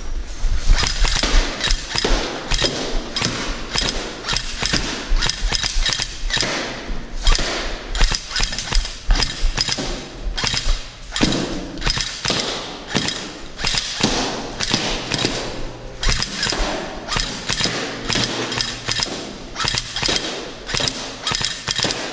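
Airsoft rifle firing at balloons, mixed with balloons popping and running footsteps on a debris-covered floor. The result is a dense, irregular run of sharp knocks and thuds.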